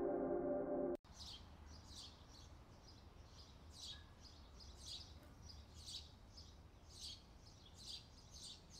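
Ambient background music cuts off about a second in. Then faint forest ambience follows, with a bird's short high chirp repeated roughly once a second.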